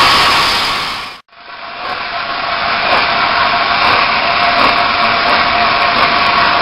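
Steam hissing from the standing Peppercorn A1 Pacific steam locomotive 60163 Tornado. A loud rush fades and cuts off abruptly about a second in, then a steadier hiss with a faint steady tone builds back up.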